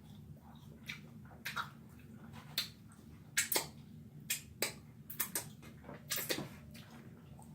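Someone eating: chewing with an irregular run of sharp mouth clicks and smacks.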